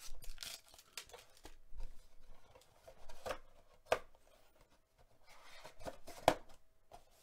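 Cardboard hockey-card hobby box being handled and opened by hand: soft rustles and scrapes of the cardboard lid and display flap, with a couple of sharp clicks about four and six seconds in.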